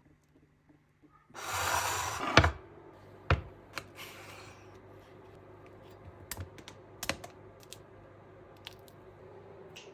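Food-preparation handling sounds: about a second of rustling, then one loud tap followed by scattered lighter taps and clicks of utensils and ingredients being handled.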